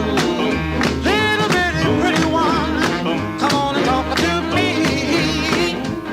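Background music: a song with singing over guitar and a steady drum beat.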